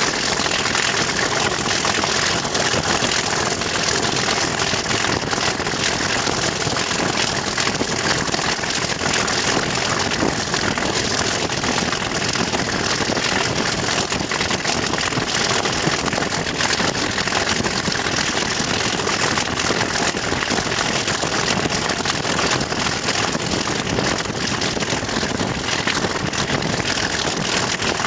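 Class 37 diesel locomotive's English Electric V12 engine working hard under power at speed, with wind rushing over the microphone and steady rail noise.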